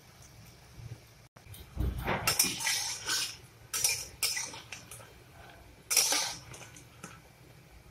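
Flat metal spatula scraping and knocking against an aluminium kadai as frying lentil fritters are turned in hot oil: a run of scrapes from about two seconds in, then separate strokes, a loud one about six seconds in.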